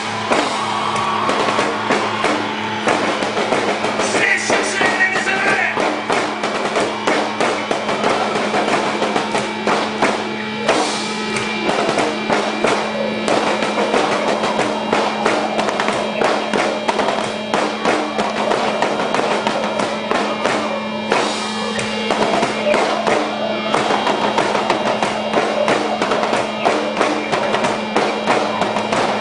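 Live rock drum solo: a drum kit played in dense, rapid strokes over a steady held low note.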